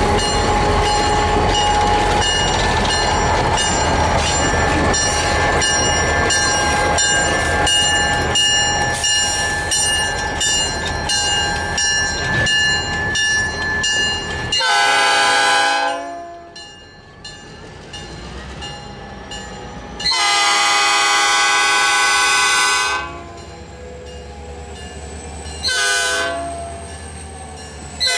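Diesel locomotives hauling a covered hopper car pass close by, engines running and the wheels clicking at a steady rhythm over the rail joints. As the train pulls away the locomotive horn sounds the grade-crossing signal: long, long, short, long, with the last blast starting right at the end.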